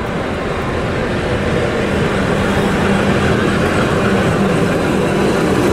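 ChME3 shunting diesel locomotive approaching with its six-cylinder diesel engine running, a steady low drone that grows a little louder as it nears.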